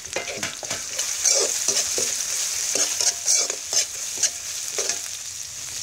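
Chopped chillies and garlic sizzling in hot oil in a metal wok, under a steady hiss. A metal spoon scrapes and knocks against the wok in quick, irregular stirring strokes.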